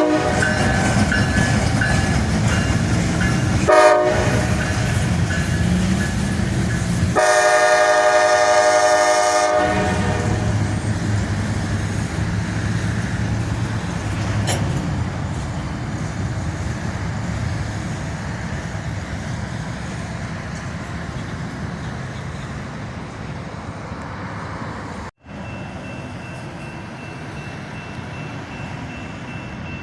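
Train passing with its locomotive horn sounding: short blasts at the start and about four seconds in, then a long blast from about seven to nine and a half seconds. Afterwards the train's rumble slowly fades away.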